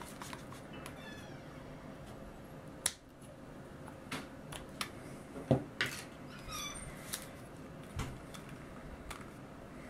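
Faint clicks and light knocks of hands working a plastic action figure and its elastic cord, over a low steady hum. A brief high, wavering cry sounds about two-thirds of the way through.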